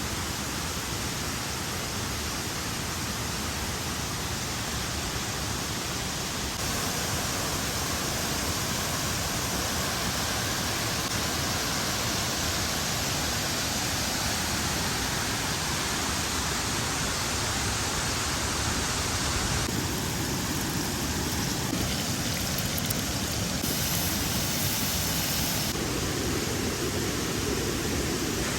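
Waterfall water rushing in a steady, even wash of noise, its tone shifting slightly a few times.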